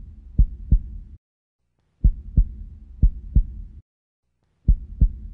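Heartbeat-style sound effect: deep double thumps, two pairs in each burst, over a low hum. Each burst cuts off after under two seconds and starts again after a short silence.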